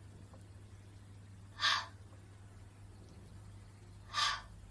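A woman sounding the phonics letter sound /h/ as a breathy unvoiced "hh", twice, about two and a half seconds apart, over a faint steady low hum.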